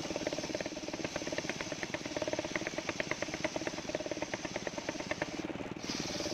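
Engine of a mobile circular sawmill running steadily, with a rapid, even knocking beat.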